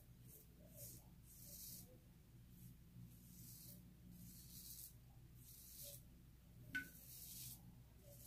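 Straight-razor-style shavette with a Feather Artist Club Pro Light blade scraping through lathered whiskers: a series of faint, short rasping strokes, one after another, with a small click about two-thirds of the way through.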